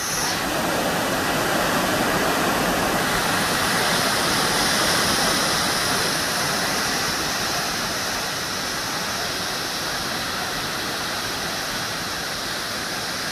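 Florence Falls' twin waterfall rushing: a steady, even roar of falling water heard from the lookout above.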